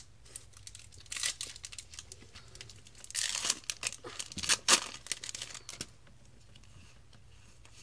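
A foil Yu-Gi-Oh booster pack wrapper being torn open and crinkled by hand. The crackling is loudest in a couple of sharp rips around the middle, then the cards are slid out.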